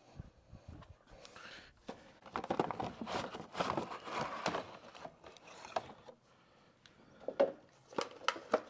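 Rustling, crinkling handling noises with scattered clicks, busiest in the middle, and a few sharper knocks near the end.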